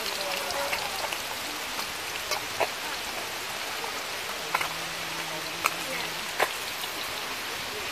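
Small fish frying in oil in a wok, a steady sizzle, with several sharp clicks of a metal spatula against the wok as they are stirred.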